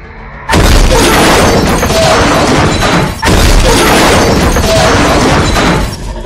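Two loud explosion sound effects for energy-blast hits. The first starts suddenly about half a second in and lasts about two and a half seconds, and the second follows almost at once and dies down near the end.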